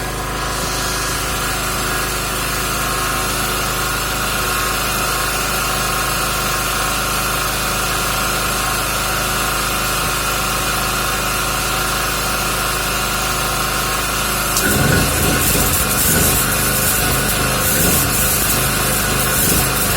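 A 3 kW generator running steadily; about fifteen seconds in, the MIG welder's arc strikes and crackles irregularly, welding with 1 mm wire under CO2 shielding gas on the generator's power.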